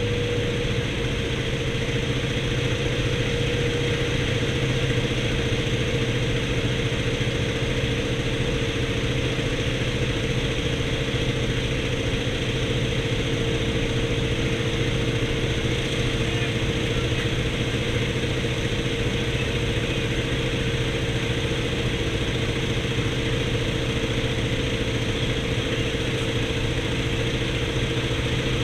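Antonov An-2's nine-cylinder radial engine running at a steady, unchanging drone.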